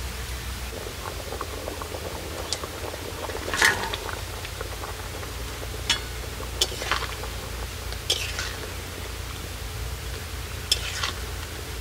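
Fish-and-taro curry gravy boiling in a pot, with a few short clicks and soft splashes as fried fish pieces go in and a metal spatula touches the pot.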